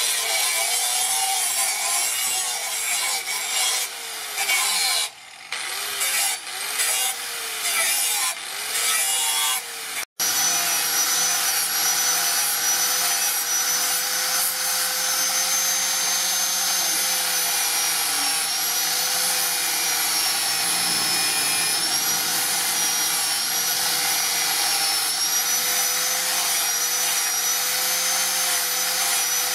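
Angle grinder with a sanding disc grinding a steel knife blade. In the first part the work comes in strokes, the motor's whine dipping and recovering as the disc is pressed on and lifted. After a brief break about ten seconds in, it grinds steadily.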